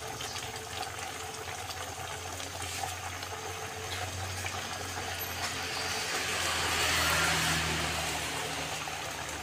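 Pork rib curry simmering and bubbling in a pot on a gas burner, a steady liquid hiss over a low hum. The hiss swells louder for a couple of seconds past the middle, then eases back.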